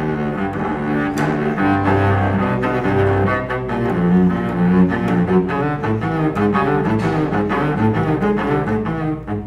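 Solo cello played with the bow, a busy passage of quickly changing notes, with deep low notes sounding about two seconds in.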